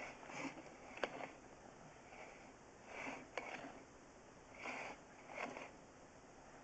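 Faint, short sniffs or breaths, about five of them a second or so apart, with two light clicks.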